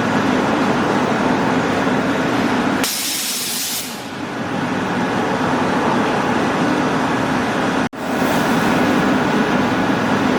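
Reinforcing wire mesh welding machine running with a steady mechanical hum, with a burst of air hiss about three seconds in.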